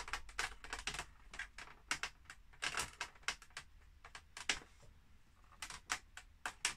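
Irregular plastic clicks and taps from the hard plastic casing of a 1985 Philips D8254 radio cassette player, handled and pressed into place by hand as its back panel and latches are fitted together.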